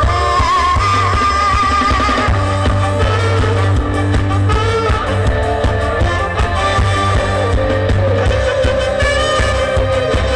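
Live Thai stage-show band music played loud through stage speakers, with a keyboard and a heavy, steady bass line under a wavering melody and some singing.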